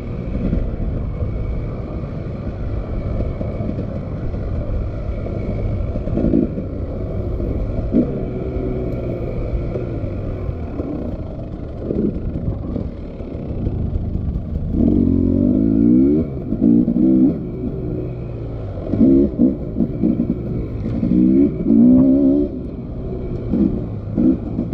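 Motorcycle engine running steadily, with several short bursts of revving in the second half.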